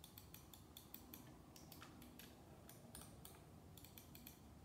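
Faint, irregular light clicks from a hard plastic wireless gaming mouse being handled on ceramic tile, several small ticks a second.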